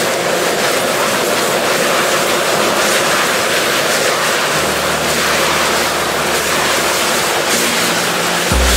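Steady roar of a gas wok burner under a carbon-steel wok, with the sizzle of chicken and vegetables being stir-fried and tossed in hot oil.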